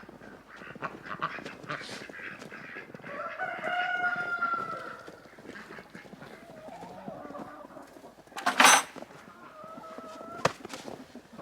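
Hens clucking and calling in a hen house, with one long drawn-out call about three to five seconds in and a shorter one near the end. A brief loud noise comes about eight and a half seconds in, and a sharp click a little later.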